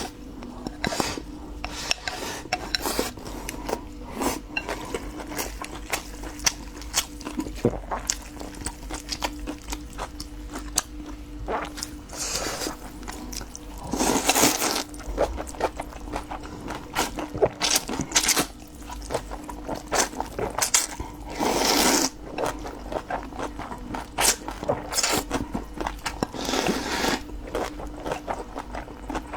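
Close-miked eating: utensils click and scrape against dishes, with chewing, and a few longer noisy bursts of about a second each, likely slurps of vermicelli noodles. A faint steady hum runs underneath.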